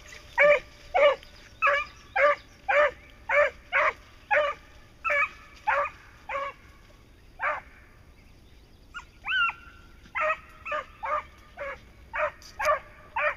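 Beagles barking steadily while trailing a scent in brush, about two loud barks a second. The barks pause for a few seconds in the middle, where one short higher cry slides up and down in pitch, then start again.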